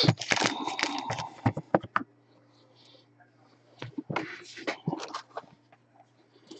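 Trading cards and card boxes being handled: quick clicks, taps and rustling for about two seconds, a pause, then another short spell of clicking and rustling.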